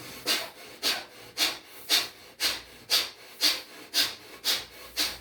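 Rhythmic rasping strokes, about two a second, made by a person doing a brisk up-and-down arm exercise.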